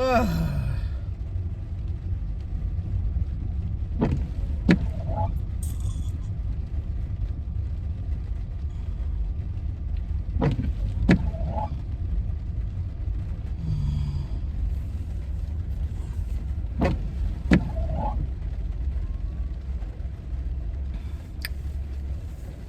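Steady low road and engine rumble inside a car's cabin in the rain. Windshield wipers on an intermittent setting knock twice, about half a second apart, once every six seconds or so.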